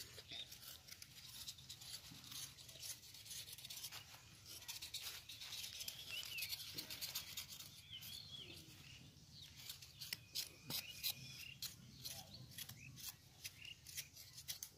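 Small knife peeling raw potatoes by hand: a quiet run of short scraping strokes as the blade shaves off the skin.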